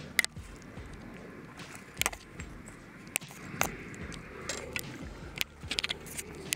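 Scattered sharp knocks and clicks as a landing net and fishing rod are handled against a metal railing with chain-link fencing, over a steady background hiss.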